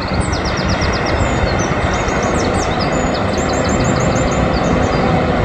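Diesel engine of a Volvo car-carrier semi-truck running, a steady low rumble. Birds chirp over it throughout in quick runs of short, high, falling notes.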